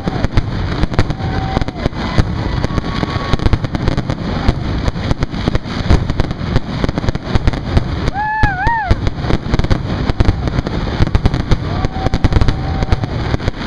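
Fireworks display: aerial shells bursting in rapid, near-continuous bangs and crackles, many a second.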